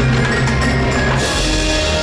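Holiday show music with percussion, several notes held at once. A little past halfway a hissing band of noise joins in.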